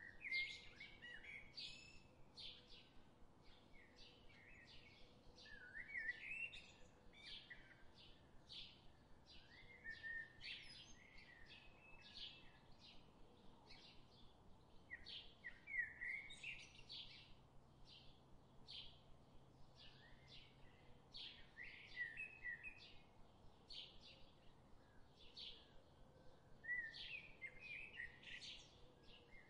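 Small birds chirping and twittering faintly: short sharp chirps repeated about twice a second, with brief bursts of quicker twittering every few seconds.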